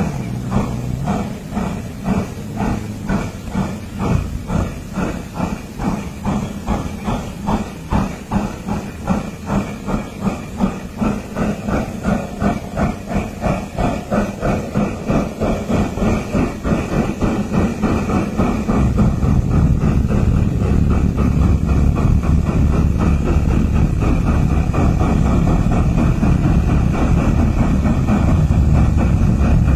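Steam locomotive chuffing, the exhaust beats speeding up and growing louder until, about two-thirds of the way through, they run together into a steady rush.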